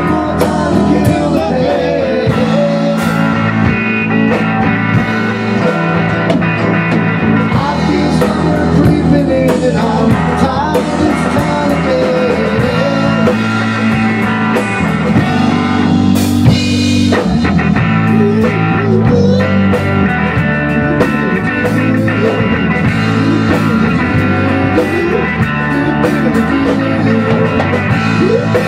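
Rock band playing an instrumental passage: electric guitar with bending notes over bass guitar and a drum kit.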